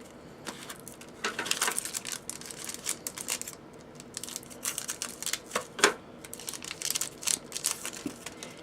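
A trading card pack's wrapper being torn open and crinkled, with the cards slid out and handled, giving uneven rustling and small clicks and snaps.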